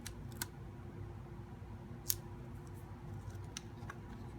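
Scotch tape being handled and pressed onto card panels: a few short, sharp clicks and crinkles, the sharpest about two seconds in, over a steady low hum.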